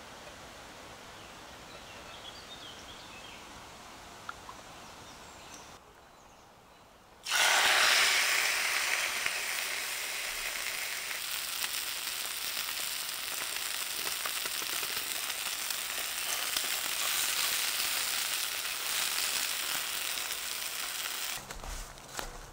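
Steak frying in a hot pan, sizzling loudly. The sizzle starts suddenly about seven seconds in and stays steady, then cuts off shortly before the end.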